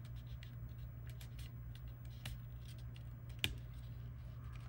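Faint, scattered small clicks and scratches of fingernails picking at the protective sticker on the plastic arm of a pair of AR glasses, with one sharper click about three and a half seconds in, over a low steady hum.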